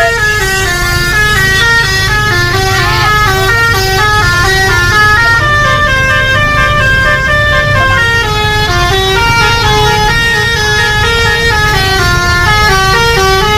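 A bus's telolet basuri musical horn playing a continuous melody: several horn tones sound together and step up and down in pitch a few times a second, over a steady low rumble.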